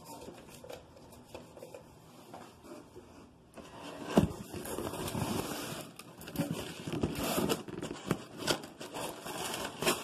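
Cardboard shipping box and its packing being handled: faint scattered rustles at first, then from about three and a half seconds in steady rustling and scraping broken by sharp knocks, the loudest about four seconds in.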